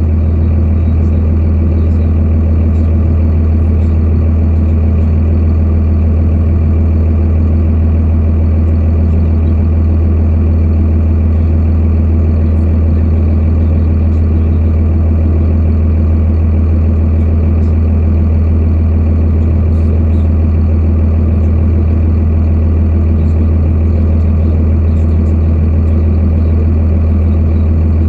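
Truck engine idling steadily, a constant low hum with no change in speed.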